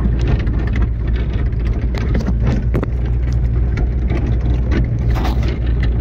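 Jeep driving on a rough dirt track: its engine drones steadily while the body gives frequent short knocks and rattles as it jolts over the bumps.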